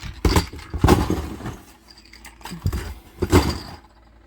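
Packaged fishing lures being tossed back into a box, making about four knocking, rattling thuds.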